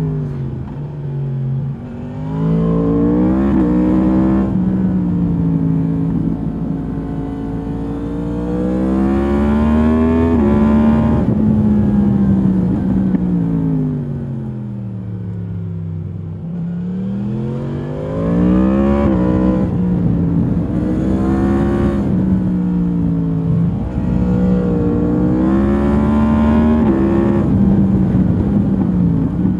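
2022 Yamaha MT-10's crossplane inline-four running through its stock exhaust under riding load. The engine climbs in pitch and drops sharply as it shifts up, falls slowly for several seconds around the middle as the bike slows off the throttle, then pulls up again through several quick gear changes.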